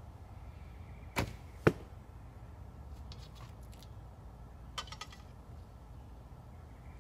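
Vintage Browning Explorer recurve bow loosed: the string snaps forward, and about half a second later the arrow hits the 3D foam target with a louder thwack. A few faint clicks follow later.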